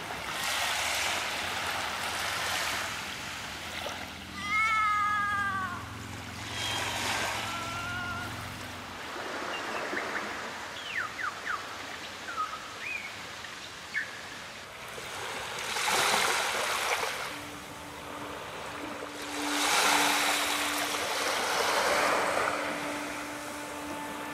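Small wavelets washing up onto a sandy beach in a few gentle swells. A bird calls a quick run of down-slurred notes about five seconds in, with a few short chirps a few seconds later.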